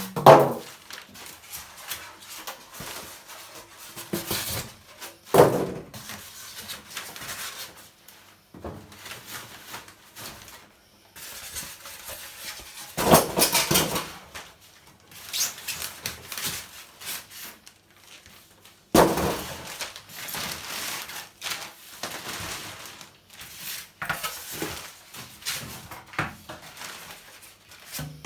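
Packaging being removed from a new tumble dryer: rustling and scraping of cardboard and wrapping, broken by several sharp knocks and thumps.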